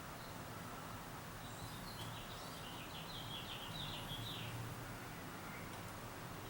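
FASCO Charleston five-blade ceiling fan running quietly with a low steady hum. Between about two and five seconds in, a bird chirps a quick series of short high notes.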